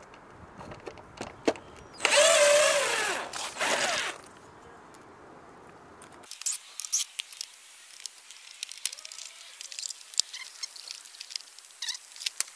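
Cordless DeWalt driver with a T20 Torx bit spinning out tail-light screws: a whining run of about a second, then a shorter burst. Later come scattered light plastic clicks and rustling as the loosened tail light is handled.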